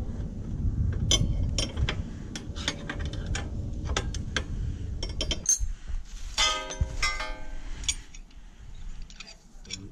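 Metal pannier-rail parts and hand tools clicking and clinking as the rails are fitted to the motorcycle frame. About six and a half seconds in there is a short ringing metallic rattle.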